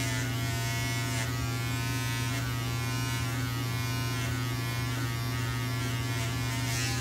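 Electric hair trimmer buzzing steadily as its blade is run along the hairline, trimming hair-building fibers.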